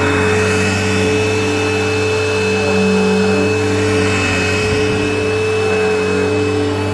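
Eureka Whirlwind LE upright vacuum cleaner running steadily as it is pushed over a rug: a constant motor hum with a high whine, its pitch holding steady throughout.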